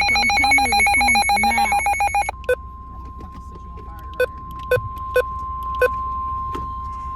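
An electronic alert alarm pulsing rapidly for about two seconds, then the steady single-pitch NOAA Weather Radio warning alarm tone just above 1 kHz, with several short sharp beeps over it. The tone marks an incoming warning broadcast, here a severe thunderstorm warning.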